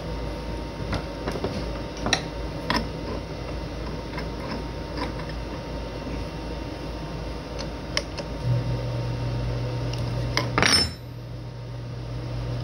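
Metal clinks and clicks of a wrench on a CNC router spindle's collet nut as the V-bit is loosened for a tool change, with a louder metal rattle near the end. A low steady hum comes on about two-thirds of the way through.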